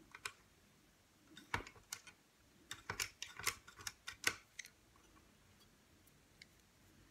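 Scattered light clicks and taps of an opened fan heater's casing and parts being handled while it is cleaned out. Most of them come in a bunch between about one and a half and four and a half seconds in.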